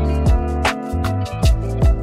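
Background music with a steady electronic beat: deep kick drums and sharp snare-like hits over held bass and chords.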